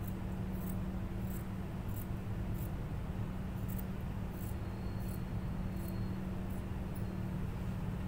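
Fabric scissors snipping through cloth: short, crisp snips, roughly one or two a second, over a steady low hum.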